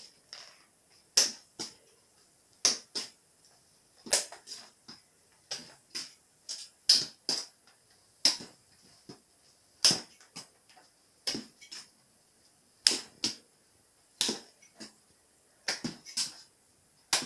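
Footsteps on a wooden floor: a string of sharp, irregular taps, about one or two a second and often in pairs, in a small room.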